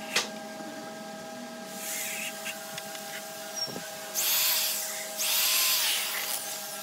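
Cordless drill boring into a pine frame joint, running in two short bursts about four and five seconds in, after a sharp click near the start.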